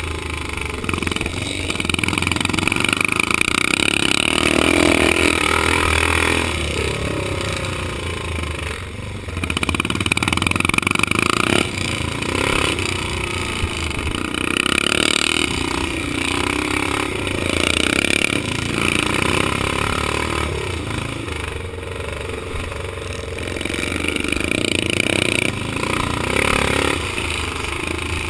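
Vintage 500cc motocross motorcycle engine under race load, heard from on the bike. It revs up and backs off again and again, swelling and falling every few seconds.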